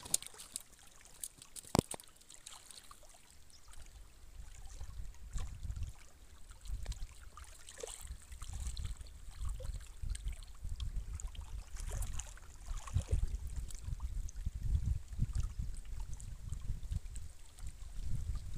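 Water lapping against a rocky shore under a low rumble of wind on the microphone that grows stronger after a few seconds, with one sharp click about two seconds in.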